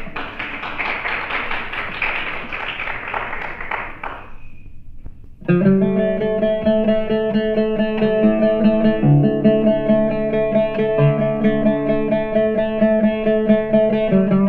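Audience applause for the first few seconds, dying away; then, after a short gap, a solo oud starts plucking a melody in maqam Rast, its low notes ringing on.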